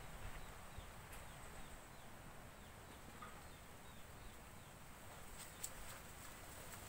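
Quiet outdoor ambience with faint distant bird calls, and a few sharp clicks about five and a half seconds in.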